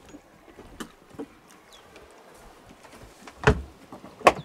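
Two loud knocks about a second apart near the end, from a plastic fuel can being set down on a sailboat's fibreglass deck and the aft locker hatch being handled, after a few light knocks of handling earlier.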